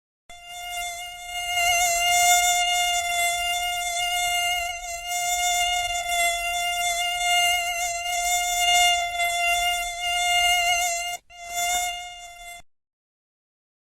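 Mosquito in flight: the steady whine of its wingbeats, one held tone with many overtones, swelling and fading in loudness. It breaks off briefly near the end, comes back for about a second, then stops.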